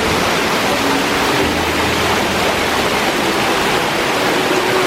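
Waterfall rushing steadily: a loud, even noise of falling water.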